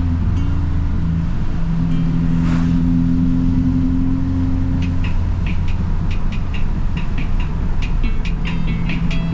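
Subaru WRX's 2.4-litre turbocharged flat-four engine running under way, heard from inside the car, with a low hum whose pitch steps up and down as speed changes, over steady road noise. From about halfway on there are short high ticks.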